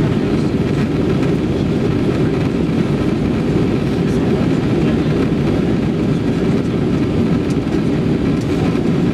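Steady airliner cabin noise: a loud, even rumble of engines and airflow heard from inside the passenger cabin as the aircraft descends to land.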